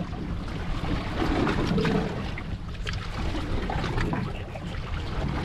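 Steady wind rumble on the microphone and water slapping a small boat's hull, with a few faint ticks and scrapes from a bait knife cutting a mullet along its backbone.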